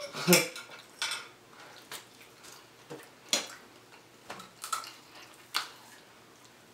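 Plastic forks clicking and scraping against dinner plates while two people eat: separate sharp clicks roughly once a second, with faint chewing in between.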